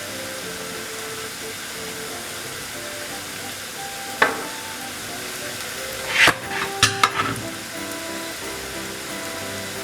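Bread-crumb-coated potato pieces deep-frying in hot oil with a steady sizzle. A utensil knocks sharply against the pan about four seconds in, and a few louder clatters follow about two seconds later.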